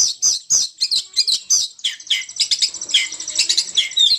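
Song of the bird known in Indonesia as burung poci, played as a trapper's lure call. A rapid run of high chirps, about three a second, gives way about two seconds in to a denser, faster twittering.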